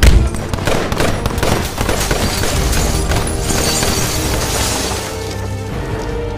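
Action-film soundtrack: a hard hit, then a rapid volley of sharp bangs, and about three and a half seconds in a spray of shattering glass and debris, all over dramatic score music.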